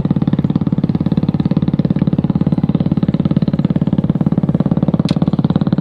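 A small engine running steadily with an even, rapid pulse.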